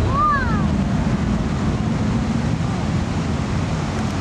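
Man-made volcano attraction erupting: a steady, loud rush of flames and cascading water over a deep rumble. A brief high rising-and-falling whoop near the start.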